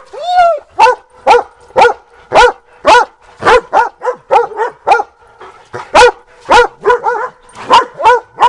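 A dog barking repeatedly, about two barks a second, each bark at the same pitch. There is a short whining yelp just after the start. The barking is typical of dogs at play.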